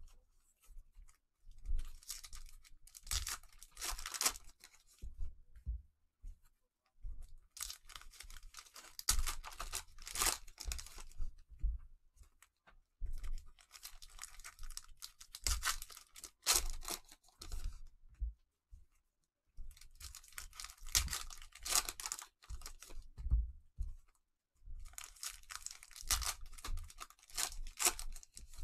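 Plastic cello-pack wrappers of Panini Mosaic basketball cards being torn open and crinkled, in five bursts of about three seconds each, roughly every six seconds, with quieter card handling in between.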